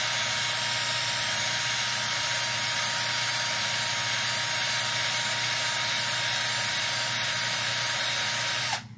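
Electric drill running steadily with a constant whine, spinning a drive punch against a leather strop loaded with polishing compound to polish out scratches; the drill stops suddenly near the end.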